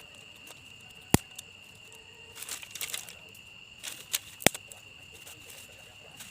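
Crickets trilling steadily in one high, unbroken tone, with two sharp clicks, about a second in and near 4.5 seconds, and short rustling scrapes between them.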